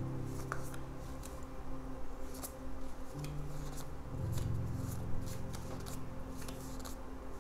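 Tarot cards being dealt one after another from a held deck and laid down on a cloth-covered table: a run of crisp card snaps and slides, about one or two a second.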